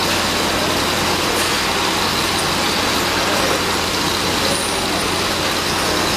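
Steady mechanical running noise with a constant low hum and a faint high whine, unchanging throughout.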